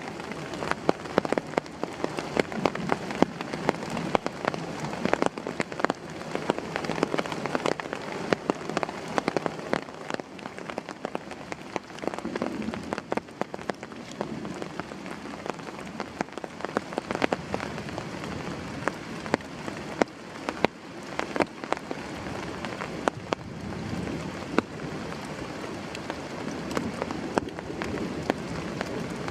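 Heavy rain falling steadily, with many large drops striking close by as sharp, irregular taps over the hiss of the downpour.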